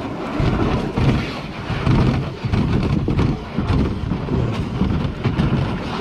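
Uneven low rumbling and scraping as an RC boat's hull is dragged over wood and dirt, towed by a Traxxas X-Maxx RC truck.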